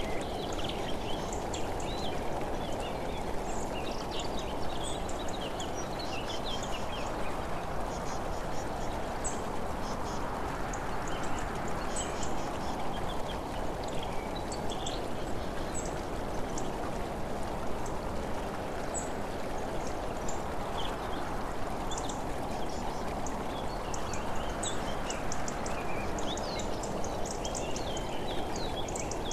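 Steady rush of wind and road noise from travelling along a road, with birds chirping irregularly throughout.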